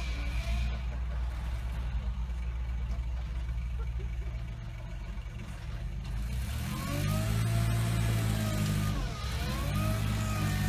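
Small site dumper's engine revving up and down: lower and quieter for the first few seconds, then revving up about seven seconds in and held high, with a brief dip near the end before picking up again.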